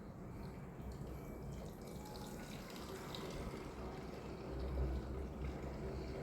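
Sea water sloshing and trickling at the shoreline, with small irregular splashes over an uneven low rumble.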